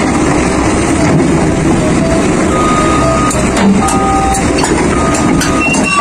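Cat crawler excavator's engine running as it moves on its steel tracks along a lowboy trailer deck: a steady heavy machine noise with scattered clanks and short high-pitched squeaks.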